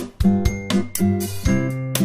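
Background music: a light instrumental track of plucked guitar-like notes over held chords, with a steady beat.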